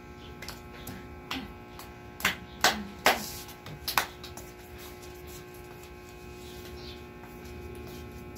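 Six sharp knocks and slaps over the first four seconds, the loudest two about two and a half and three seconds in, over a steady low hum.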